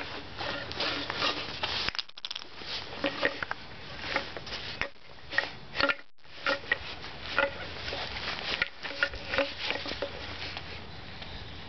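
Irregular light taps and clicks of small hands handling a wooden toy box, with a few short squeaky blips mixed in.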